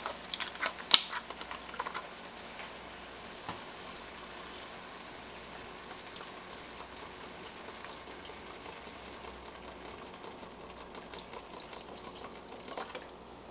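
Vegetable broth poured in a steady stream from a carton into an enameled cast-iron pot of sautéing peppers, onions and celery, giving a faint, even pouring and sizzling. There are a few light knocks in the first couple of seconds.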